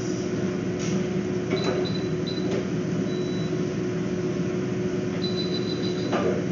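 Steady electrical hum of equipment with a constant tone. Faint short high-pitched beeps come in small groups, and a few brief rustles of fur being handled are heard about a second in, near the middle and near the end.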